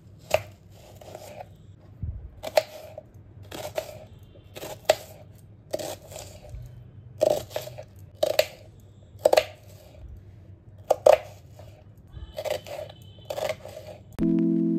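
Kitchen knife slicing a red onion on a wooden chopping board: irregular crisp cuts, each ending in a knock of the blade on the board, about one a second. Music comes in just before the end.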